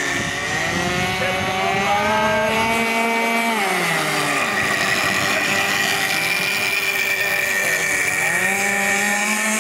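26cc two-stroke gas engine of a radio-control model powerboat running at high revs, with a high, saw-like whine. The revs rise about a second in, drop off around four seconds in, and climb again near the end.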